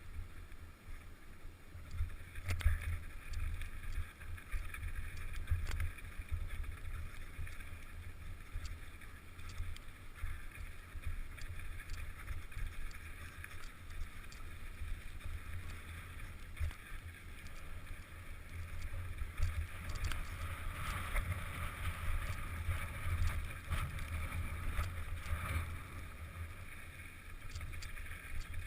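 Wind buffeting the microphone during a mountain-bike ride down a dirt trail, a gusty rumble under a steady rushing hiss of tyres and air, with scattered clicks and knocks from the bike.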